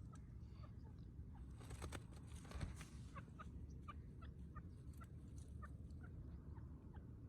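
Faint run of short, high, downward-sliding chirps from a francolin (partridge), about two or three a second, with a few brief crackles about two seconds in.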